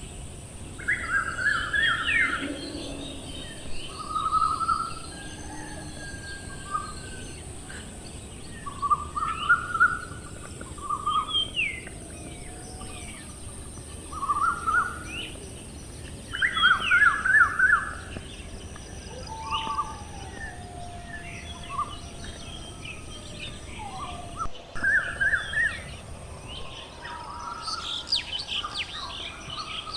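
Several birds chirping and calling, short twittering trills and gliding whistles repeating every second or two over a steady outdoor background hiss.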